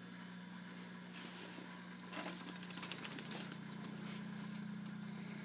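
A burst of rapid clicking and metallic jingling about two seconds in, lasting a second or so, as a Miniature Pinscher puppy scrabbles about, its claws and harness clip rattling. A steady low hum runs underneath.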